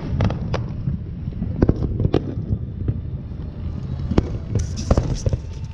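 Fireworks going off: scattered sharp bangs over a steady low rumble, with a crackling hiss about three-quarters of the way through.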